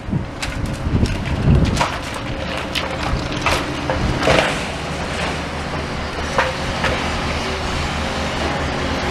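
Demolition excavator's engine running steadily, with irregular clanks and knocks of rubble and metal being worked, most of them in the first few seconds.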